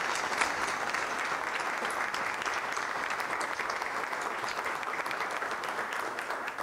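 Audience applauding: a steady, dense clapping of many hands.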